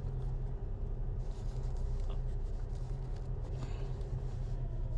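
Faint scraping and small clicks of a rubber pedal stopper being worked into the pedal bracket by hand, over a steady low hum.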